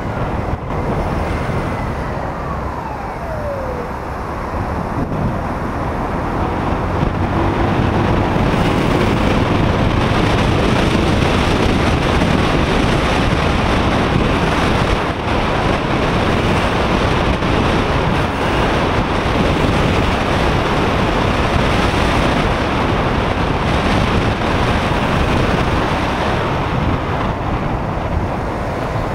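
Wind buffeting an action camera's microphone on a moving motorcycle, mixed with engine and road-traffic noise. It is a steady rush that grows louder about seven seconds in.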